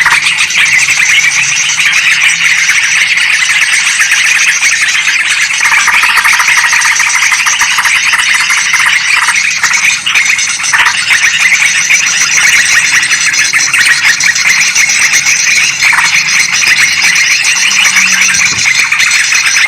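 Yellow-vented bulbuls and sooty-headed bulbuls calling together in a loud, continuous chattering chorus of excited, agitated calls, as used in a bird-lure recording.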